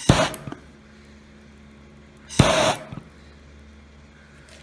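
Hand-held gas torch fired in two short blasts of about half a second each, one at the start and one about two and a half seconds in, each a hiss of flame that cuts in sharply.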